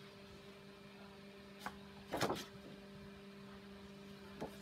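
A sheet of watercolor paper being handled and lifted off a printed pattern, with one brief rustle about two seconds in and faint taps before and after, over a steady low hum.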